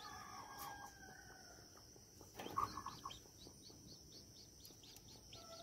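Newly hatched chicks peeping faintly: a rapid run of short, high, falling peeps, about three to four a second, starting about a second in. A louder short call comes about two and a half seconds in.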